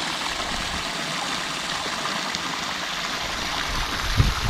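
Water running steadily along a drainage ditch, pumped out of a flooded pond, with a few low knocks near the end.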